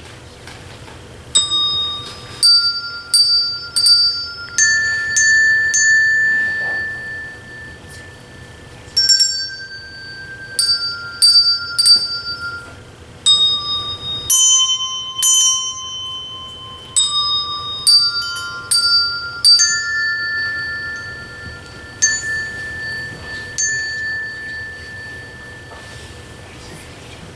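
Children's handbell choir ringing a slow tune, one note at a time. Each bell is struck and left to ring on, in phrases with short pauses between them, and the last notes fade out near the end.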